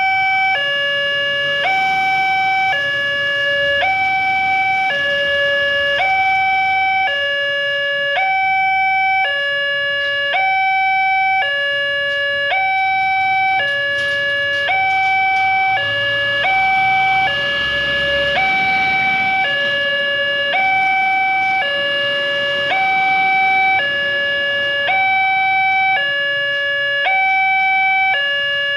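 Railway level-crossing warning alarm from the loudspeaker on the crossing signal post: an electronic two-tone sounding, a higher and a lower note alternating evenly, each held for about three quarters of a second. It signals an approaching train while the crossing barrier closes.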